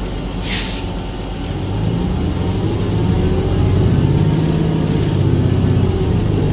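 City transit bus heard from inside the cabin: a short burst of air-brake hiss about half a second in, then the engine and drivetrain building up and getting louder as the bus pulls away, with a faint rising whine.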